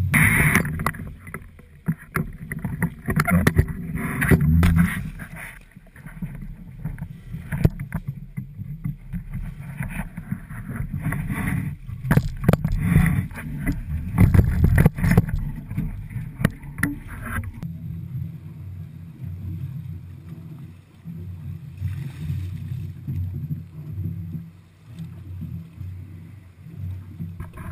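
Wind on the microphone and choppy water slapping against the hull of a small fishing boat, with scattered knocks and bumps. The low rumble eases about two-thirds of the way in.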